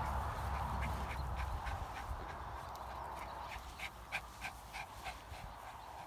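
Two small fluffy dogs playing on grass, making a run of short quick sounds, a few each second, that come thicker in the second half, over a low rumble.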